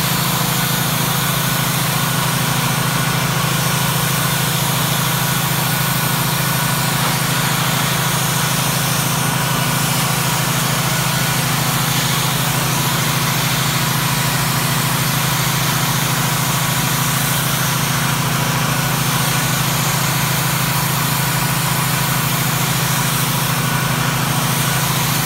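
Pressure washer running steadily under load, with the hiss of its jet spraying against the log wall as stripper is washed off the wood.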